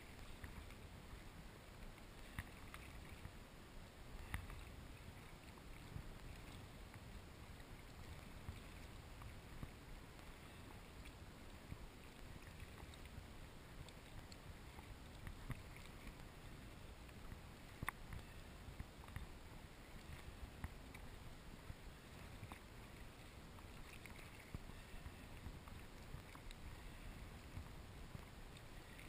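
Kayak paddling through choppy sea water, heard faint and muffled: a steady low rumble of wind and water with scattered sharp ticks and splashes from paddle strokes and waves slapping the hull.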